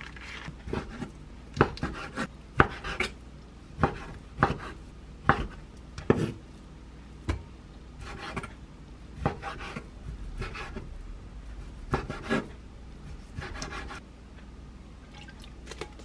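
Kitchen knife cutting raw chicken breast into large chunks on a wooden cutting board: a dozen or so irregular knocks as the blade strikes the board, roughly one a second.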